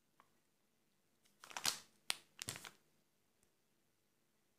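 Plastic bag of unrefined cane sugar crinkling as it is handled: two short rustles about a second apart, with a sharp click between them.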